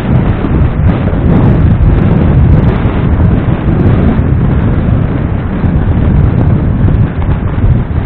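Loud wind buffeting on the microphone of a camera riding on a moving motorcycle: a constant low, fluttering rush.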